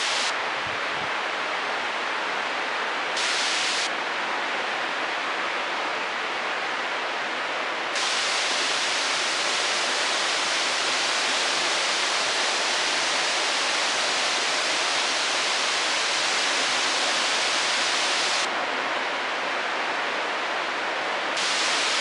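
Steady rush of falling water from a waterfall. The hiss brightens and dulls abruptly a few times.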